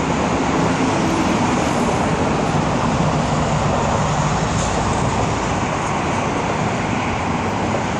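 Steady highway traffic noise from many passing vehicles.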